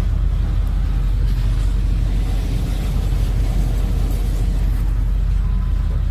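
Pickup truck engine idling, a steady low rumble heard from inside the cab.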